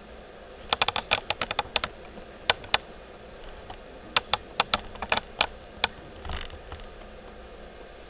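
Two quick flurries of sharp clicks, about ten in each, with a pair of clicks between them and a short soft rustle about six seconds in.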